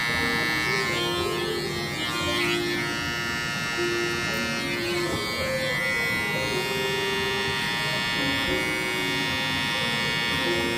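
Electric hair clipper running with a steady buzz as it fades the hair at the back of the neck, with a light rasp of cutting hair twice. Background music plays under it.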